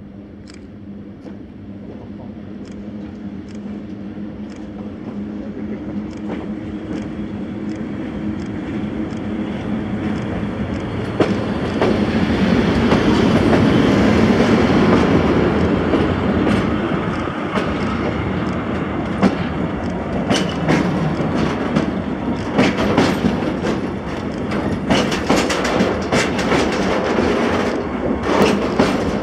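Freight-style works train led by a Polish EU07 electric locomotive, with an SM42 diesel shunter and a catenary maintenance train behind it, approaching and passing close by. It grows steadily louder with a steady hum for about twelve seconds, peaks as the locomotives go past, then the wagons roll by with their wheels clicking over rail joints.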